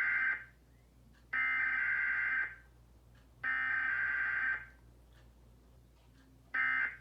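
Emergency Alert System SAME data tones: harsh warbling digital bursts. One burst ends just after the start, two more follow, each about a second long and about a second apart, and a shorter burst comes near the end, the start of the end-of-message code.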